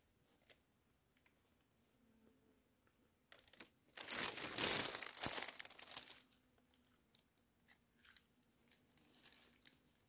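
Paper bag crinkling and rustling for about three seconds in the middle, with faint clicks of chewing before and after.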